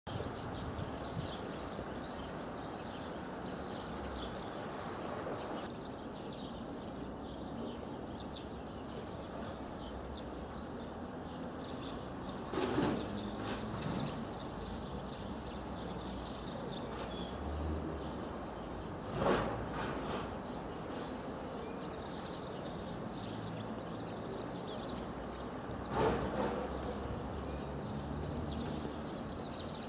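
Bohemian waxwings calling: many short, high, thin trills scattered throughout, over a steady background noise. Three brief louder noises stand out, about 13, 19 and 26 seconds in.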